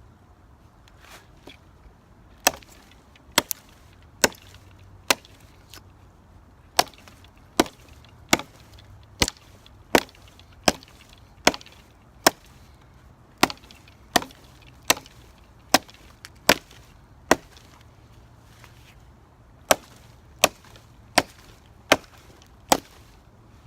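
Hatchet with a newly fitted wooden handle chopping into a log: about two dozen sharp, even strikes, one every second or less, in runs with two short pauses.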